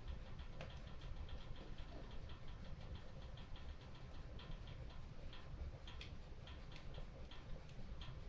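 Wood fire crackling in a stone fireplace: many small, irregular pops and snaps over a low, steady rumble.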